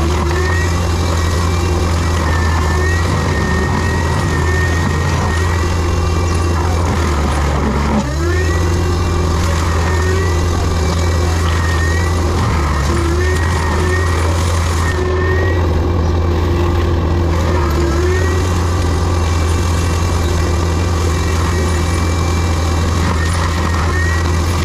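Diesel engine of heavy land-clearing equipment running steadily under load, with a hydraulic whine that wavers up and down in pitch and dips briefly about eight seconds in.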